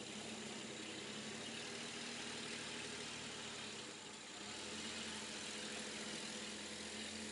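Ford Ranger pickup's engine running at low speed as the truck drives past, pulling a wooden plank drag over loose soil, over a steady hiss. The engine hum is faint and grows a little louder and deeper about halfway through.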